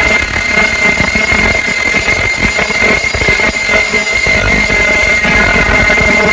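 Ultrasonic non-woven pants-making machine running: a loud, steady mechanical clatter of rollers and feed gear, with a steady high-pitched whine over it.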